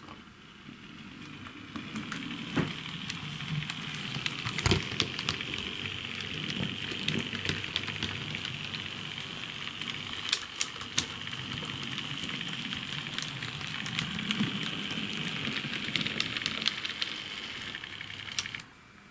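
H0-scale model BR 64 steam locomotive running along the track: a steady hissing whir of motor and wheels, with irregular sharp clicks as the wheels pass rail joints and points. It stops abruptly near the end.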